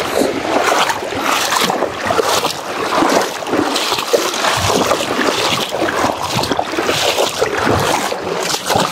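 Swift river current rushing loudly, with irregular splashing surges.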